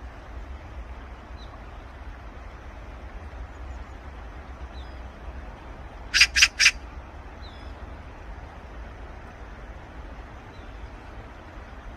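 Eurasian magpie giving a short harsh chatter: three rapid, rasping notes about six seconds in. Under it run a steady low background rumble and a few faint high chirps.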